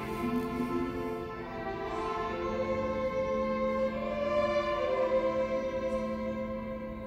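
A string orchestra playing a slow passage of held chords, swelling about four seconds in and then fading away near the end.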